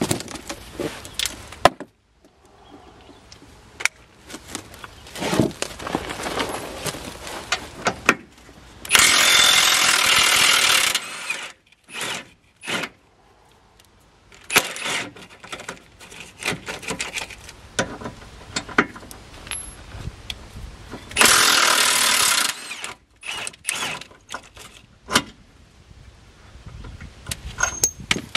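Cordless Milwaukee impact wrench hammering as it loosens bolts, in two bursts of about two seconds each, one about a third of the way in and one about three quarters through. Clinks and knocks of tools and metal parts fill the gaps between the bursts.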